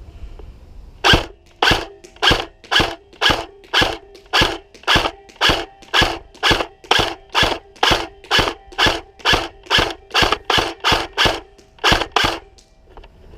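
Jag Arms/VFC PHX15 Crusader airsoft electric gun firing single shots in semi-auto, about two dozen sharp cracks at roughly two a second, each with a brief ringing from the gearbox.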